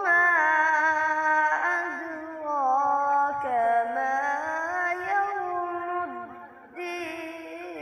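A boy reciting the Quran in melodic tilawat style, holding long drawn-out notes that slide up and down, with a short pause for breath about six and a half seconds in.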